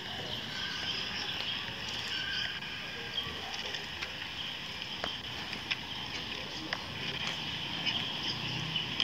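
Bicycle rolling over flagstone paving: a steady hiss with small scattered clicks and rattles from the bike and camera.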